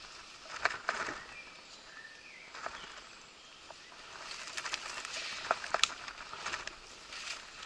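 Footsteps on a leaf-littered woodland path and leaves and stems rustling against the wearer, with scattered sharp crackles. The rustling grows busier about halfway through.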